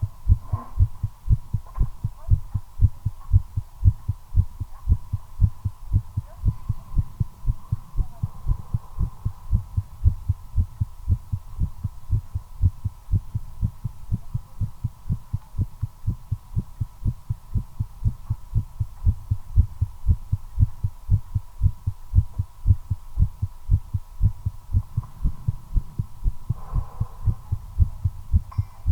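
A human heartbeat beating fast and regularly, the low lub-dub thumps picked up close against the chest; the rate is raised by nicotine during cigarette smoking. A faint steady high whine runs underneath.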